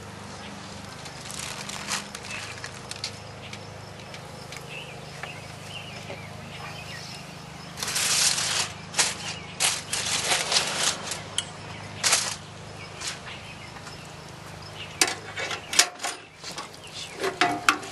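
Metal tongs clacking and scraping against an electric deep fryer's wire basket while chicken pieces are loaded. A quick run of sharp clicks comes from about eight to thirteen seconds in, and a few more clicks near the end as the basket is handled. A steady low hum sits underneath.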